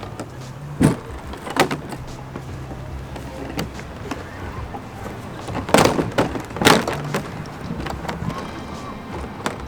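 Plastic hull of a TuckTec folding kayak being unclipped and folded by hand: a few sharp knocks and clatters of the sheet, two early and two louder ones just past the middle.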